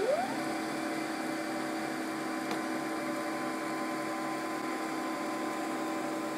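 Stepper motor whining: its pitch glides up at the very start, then holds a steady tone.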